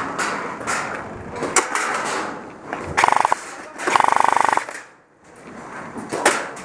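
Airsoft electric gun firing two short full-auto bursts, a rapid even rattle of the motor and gearbox cycling, about a second apart. The second burst is the longer one. Scattered knocks and gear rustle run in between.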